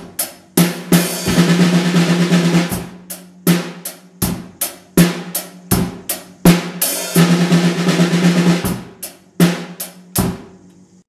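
Drum kit played in a beat that twice breaks into a fast run of snare drum strokes, Swiss Army triplet fills, with bass drum under it. The playing stops shortly before the end.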